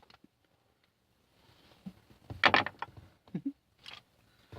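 Near silence, then a short, loud cluster of clicks and rattles about two and a half seconds in, followed by a few fainter knocks: handling noise.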